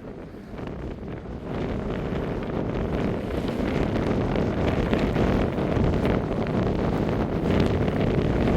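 Strong wind buffeting the microphone, a heavy low rumble that grows louder about a second and a half in and keeps gusting.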